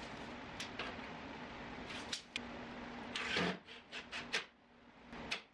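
Steady background hum, then, about three seconds in, a quick cluster of knocks and clicks from a drill/driver and clamp being worked against an oak-plywood dresser carcass.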